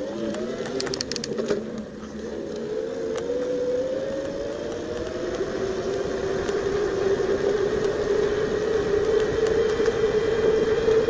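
Bafang BBS02 750 W mid-drive e-bike motor whining as the bike accelerates, its pitch rising over the first few seconds and then holding steady at speed. Wind and tyre noise grow with the speed, and a quick run of clicks comes about a second in.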